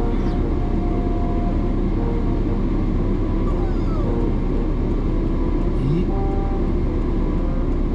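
Steady engine and road noise inside the cabin of a Subaru STI on the move.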